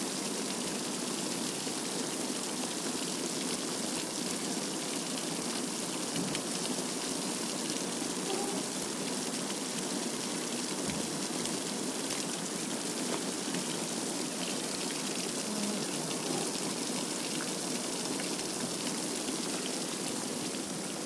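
Water gushing out of a fish-transport tank's outlet and splashing onto a metal chute in a steady, unbroken rush, as the tank is emptied to release fish for stocking.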